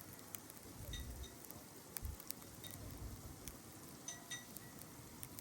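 Faint wind buffeting the camera's built-in microphone, in short low rumbles about one, two and three seconds in, with a few faint ticks.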